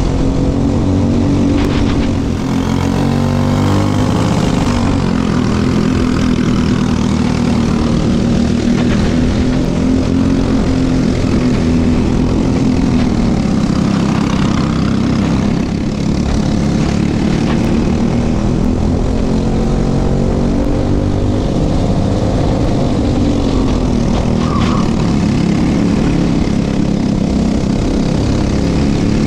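Briggs & Stratton LO206 single-cylinder four-stroke kart engine running at race pace, heard on board, its pitch rising and falling with the straights and corners.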